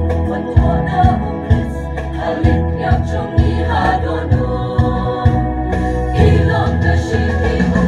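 Mixed choir of men and women singing a church hymn into microphones, many voices in harmony over a low accompaniment with a steady beat about twice a second.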